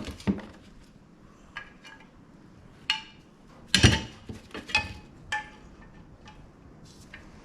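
New drum-brake shoes and metal brake parts being handled and set down on a bench: a string of separate metallic clinks and clanks, the loudest about four seconds in.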